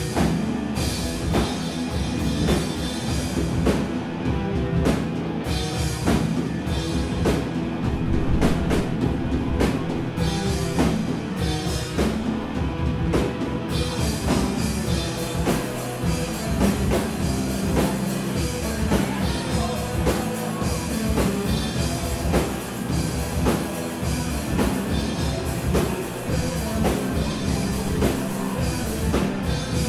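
Live rock band playing loud: distorted electric guitar, drum kit and synth keyboard, heard from the back of the room. The sound gets brighter and busier about halfway through.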